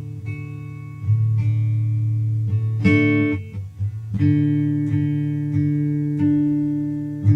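Guitar music: plucked notes ringing over a held low note, the chord changing every second or two.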